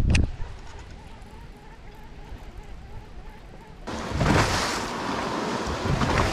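A quick swish as the rod is cast, then quiet with a faint steady whir; about four seconds in, a rush of wind and water noise sets in suddenly and carries on.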